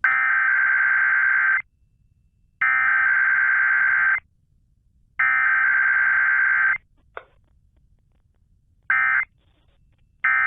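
Emergency Alert System SAME data tones over the radio: three long screeching header bursts about a second and a half each, a second apart. After a pause come two short end-of-message bursts near the end.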